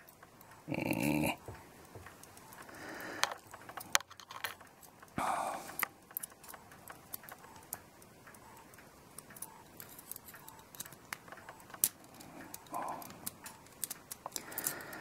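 Scattered light clicks and taps of brass clock-movement plates, wheels and a slim steel pivot-locator tool as a pivot is worked into its hole, with a few short breaths or grunts of effort.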